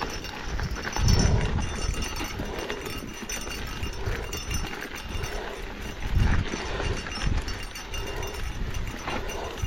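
A mountain biker's heavy, laboured breathing while pedalling up a steep climb, in a steady rhythm of breaths. There are two louder low bumps, about a second in and about six seconds in.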